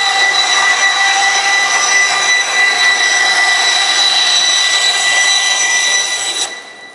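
Forrest Manufacturing vertical-blade bandsaw with a 1-inch blade on 20-inch wheels, ripping a structural insulated panel of wood skins around a urethane foam core: a loud, steady, high whine. It cuts off sharply about six and a half seconds in, as the cut ends.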